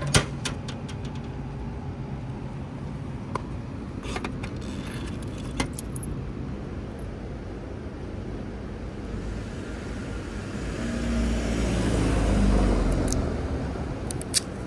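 A car passing on the road, its rumble swelling and fading about ten to thirteen seconds in, the loudest sound here. Around it, sharp clicks and small rattles of a plastic jar being handled: a loud click at the start as it comes out of the vending machine's pickup tray, and clicks near the end as its plastic lid is twisted.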